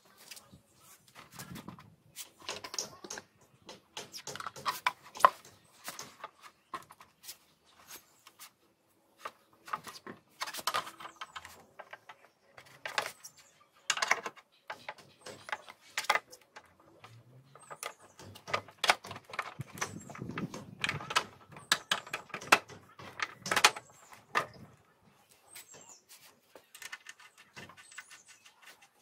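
Irregular metal clinks, knocks and rattles of a Honda Shine motorcycle's front wheel being refitted, with the axle and a spanner worked at the hub and fork, and a few dull thuds as the wheel is handled.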